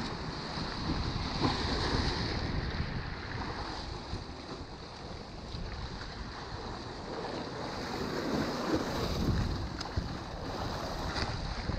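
Waves washing against the rocks of a stone jetty, with wind buffeting the microphone.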